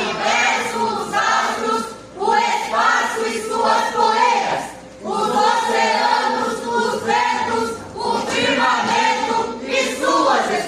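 A group of adolescent voices singing together as a choir, in sustained phrases with short breaks between them.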